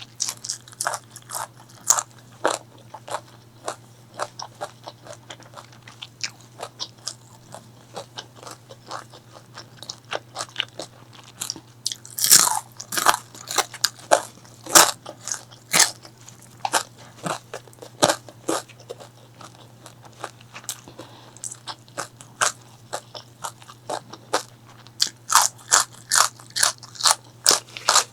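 Close-miked eating: a person biting and chewing crispy fried food, a steady run of crisp crunches and crackles. The crunching comes louder and denser from about twelve to sixteen seconds in and again near the end.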